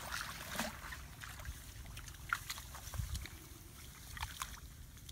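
Small irregular splashes and sloshing of hands and feet moving through shallow muddy water.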